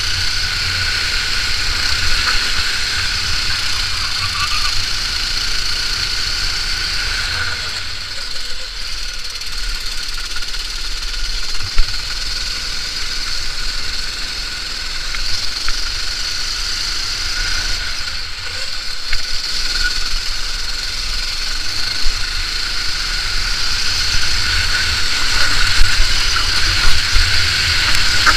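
Racing kart engine running hard, recorded from the kart's onboard camera, with a steady high note over a rush of wind and road noise. The note dips briefly twice, about a third and two-thirds of the way in, and a few sharp knocks stand out.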